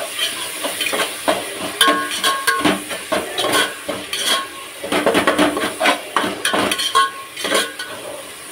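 Metal pots, dishes and utensils clinking and clattering irregularly, some clinks ringing briefly, over the sizzle of food frying in a pan.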